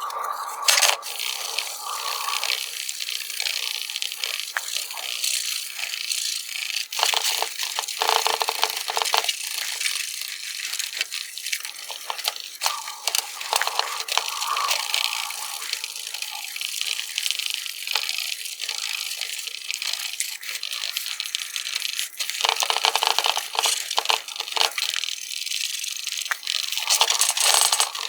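Cloth towel scrubbing clarifying compound over a wet plastic headlight lens in firm circular strokes, a steady, uneven scrubbing hiss that swells at a couple of points.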